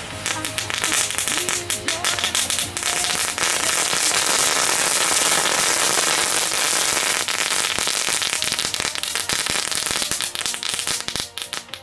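Lesli Machine Gun Crackers, small F1 crackling fireworks, going off in a dense, rapid crackle of tiny snaps. The crackle builds over the first few seconds, holds, then thins out and stops shortly before the end.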